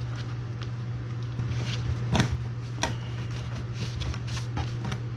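Scattered crackles and knocks from hands working with wiring and tape, the loudest about two seconds in, over a steady low hum.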